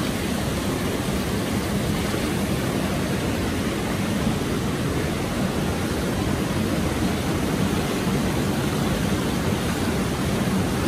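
Water churning steadily in an indoor spa pool, stirred by hydromassage jets and air bubblers, with a wall spout pouring into it. It makes an even, unbroken rushing hiss.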